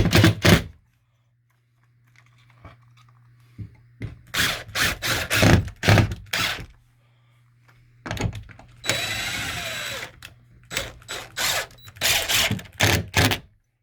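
Power drill driving drywall screws into a drywall patch, run in short bursts, with one longer continuous run about nine seconds in.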